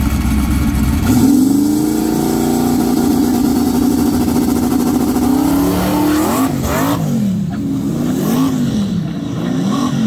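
Small-tire drag car launching from the starting line: a low rumble, then about a second in the engine note climbs steeply as the car accelerates away down the track. From about six seconds the engine pitch rises and falls repeatedly as it runs on.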